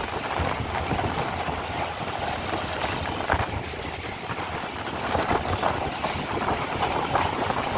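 Passenger train running at speed, heard from outside its open side: a steady rush of wheel and track noise with many small rattles and clicks.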